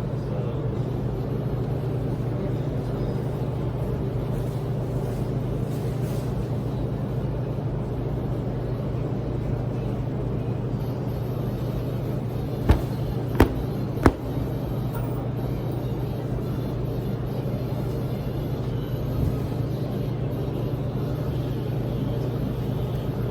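Steady low hum of running laundromat machines, with three sharp knocks close together about twelve to fourteen seconds in.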